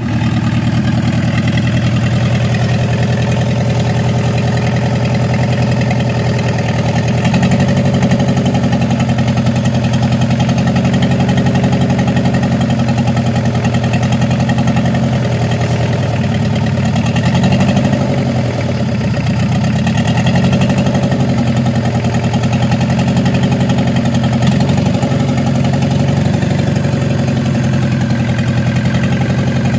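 Mitsubishi L300 diesel engine idling steadily, with the even clatter of a diesel at rest.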